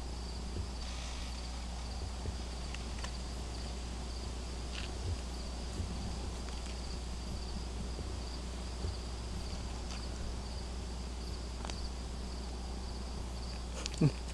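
Insect chorus of crickets: a steady high-pitched trill with no break. Beneath it runs a low steady rumble, with a few faint ticks.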